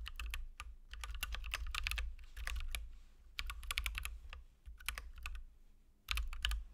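Typing on a computer keyboard: quick runs of keystrokes with short pauses, a gap of about a second, then a last burst near the end.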